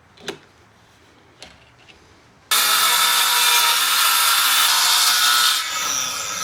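A power saw cutting wood, most likely into sheet material for a new camper door. It starts abruptly about two and a half seconds in after a few faint clicks, runs loud and steady for about three seconds, then eases off somewhat near the end.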